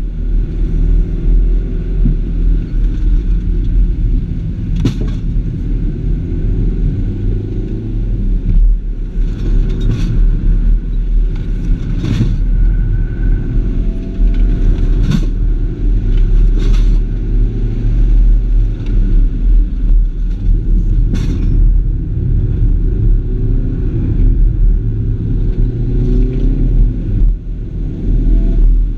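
Car engine heard from inside the cabin during a slalom run, its pitch rising and falling repeatedly as the car accelerates and slows between gates. A few sharp knocks are scattered through it.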